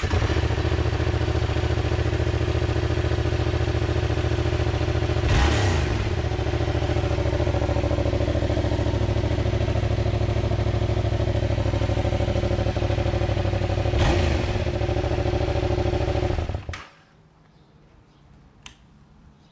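2019 Yamaha MT-07's 689 cc parallel-twin engine idling steadily through its stock muffler, which has its tailpipe cover removed and three holes drilled in it. It is revved briefly twice, about five seconds in and again about fourteen seconds in, then shut off a few seconds before the end.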